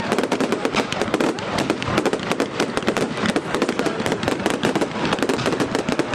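Aerial fireworks display going off in a dense, unbroken barrage: many overlapping bangs and rapid crackling with no pause.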